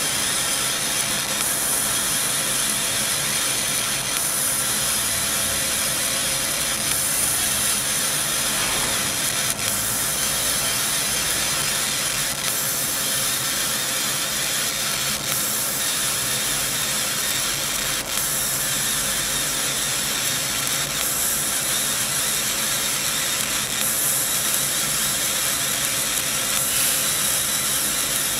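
CO2 laser cutting machine running as it cuts a pattern into thin brass sheet: a steady, even hiss and mechanical whir, with a few faint clicks.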